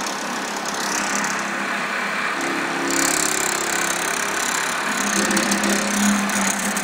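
Computer-controlled automatic pattern sewing machine running, the needle stitching steadily while the motor-driven frame moves the template under the head. A low motor hum comes and goes twice over the steady machine noise.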